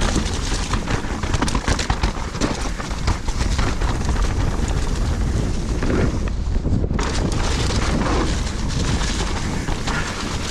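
Wind buffeting the microphone of a mountain bike ridden fast down a muddy trail: a steady rumble with frequent small knocks and rattles from the bike over rough ground.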